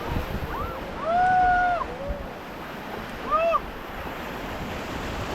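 River water rushing with wind buffeting the microphone. Over it, a voice gives a long held whoop about a second in and a shorter one just past three seconds.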